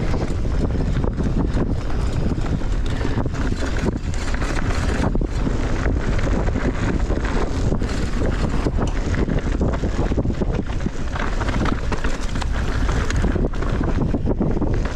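Wind rushing over the microphone of a mountain bike rider moving at speed, with the bike's tyres rumbling over rough trail and frequent short knocks and rattles.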